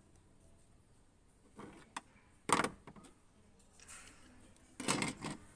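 A few short knocks and clicks of hard plastic parts being handled, one at about two and a half seconds and another near the end, with quiet between.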